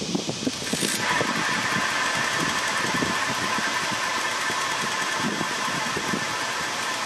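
Shimano Ultegra FH-6600 rear freehub ratcheting as the wheel freewheels, a steady buzz that starts about a second in.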